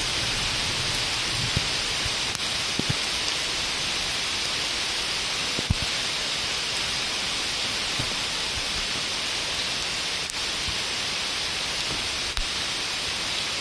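Steady rain falling, an even hiss, with a few sharp taps scattered through it.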